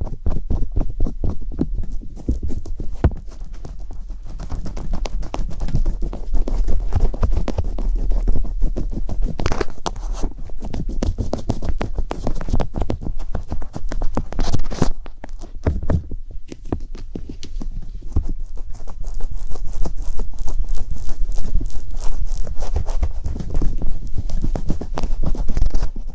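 Rapid, irregular tapping and clicking, many strokes a second, with a steady low rumble beneath.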